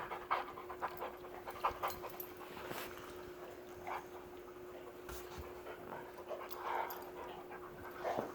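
A dog panting during play, with scattered short clicks and scuffles. A faint steady hum runs underneath.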